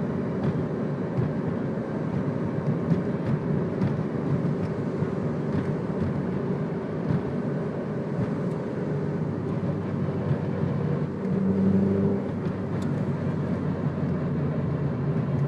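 2002 Ford Focus driving: a steady rumble of engine and road noise, which swells briefly with a low hum about eleven seconds in.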